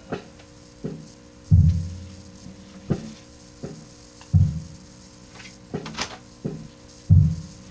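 Hollow-body electric guitar played sparsely and percussively through an amplifier: three heavy low thuds a few seconds apart, with sharper clicks scattered between them, over a steady amplifier hum.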